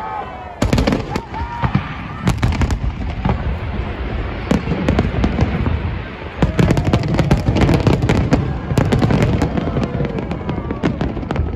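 Aerial fireworks bursting in quick succession: many sharp bangs over a constant noisy wash. Voices in the crowd call out now and then.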